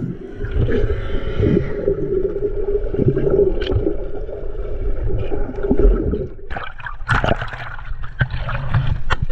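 Muffled underwater sound picked up by a camera held below the surface, with bubbling from a swimmer exhaling and a steady droning tone. About six and a half seconds in, the camera breaks the surface and water splashes and sloshes around it.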